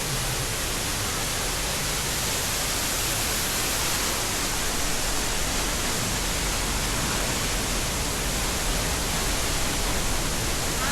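Large waterfall, a loud, steady rush of falling water.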